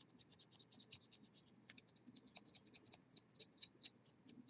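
Faint, quick scratching of a paintbrush's bristles scrubbed back and forth over the miniature's metal maul as steel paint is worked on to shine it up. The strokes come fast at first, then slow and space out toward the end.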